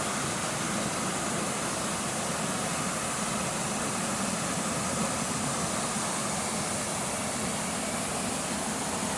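Waterfall, its falling water making a steady rushing roar.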